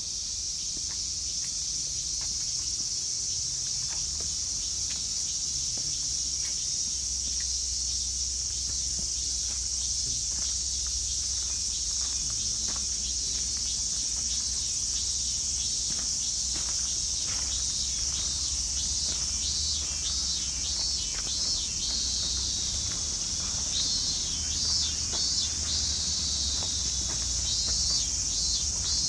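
Insects singing in a steady, high, continuous drone, with a faster pulsing chirp joining in the last few seconds.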